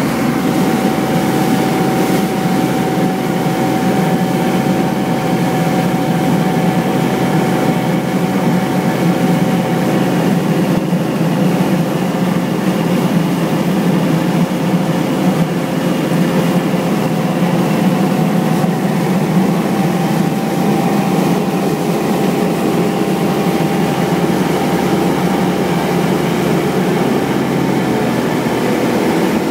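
Motorboat engine running steadily at speed while towing a rider, with the wake rushing behind the boat and a faint steady whine over the drone.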